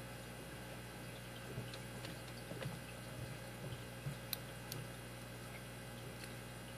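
Faint, scattered clicks and scrapes of a lock pick working the pin stack inside a Master Lock 160 brass padlock, under tension, over a steady low hum.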